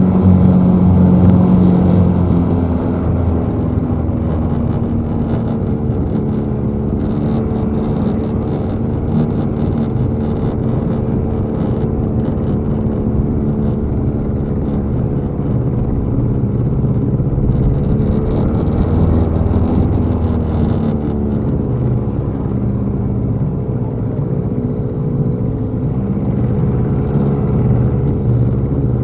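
Small outboard motor running steadily, pushing a jon boat along, its pitch dipping slightly and recovering about two-thirds of the way through. The owner says something is wrong with it: it is not running, or moving the boat, as fast as it ought to, as if stuck in one gear.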